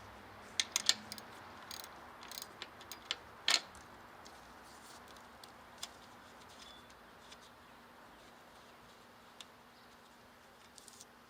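Sharp metallic clicks and light clinks of hand tools and small parts being handled, bunched in the first few seconds and sparse after, over a faint steady hum.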